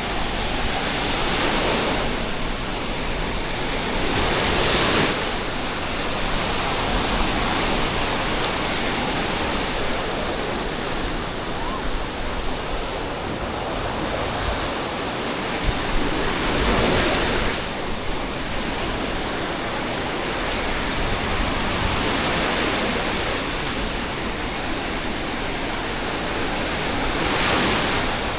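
Sea surf washing on the shore: a steady rush of waves that swells each time a wave breaks, three times about ten seconds apart.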